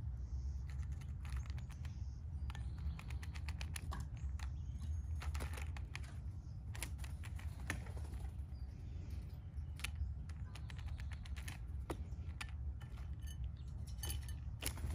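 Irregular quick clicks and taps of a Steller's jay picking through peanuts in the shell in a glass bowl, shells knocking against each other and the glass, over a steady low hum.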